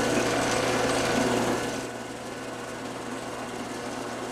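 Drill press motor running while a small twist bit drills a shallow hole into an aluminium block. About two seconds in the sound drops to a quieter steady run.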